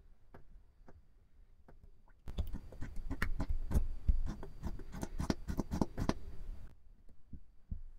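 Silicone spatula stirring runny glue and sugar-salt water in a glass bowl. A few faint taps come first, then from about two seconds in a dense run of wet clicks and squelches, which cuts off suddenly near the end.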